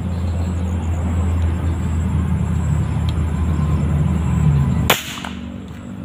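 A single sharp rifle shot firing a slug about five seconds in, which hits the target. Before the shot a steady low hum runs underneath; it is quieter afterwards.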